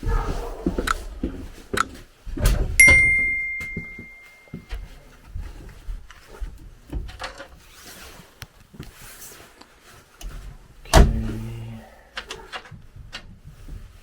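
Work-handling noise: scattered knocks and clicks, with a sharp metallic clang a few seconds in that rings on for a second or two, and another hard knock near the end.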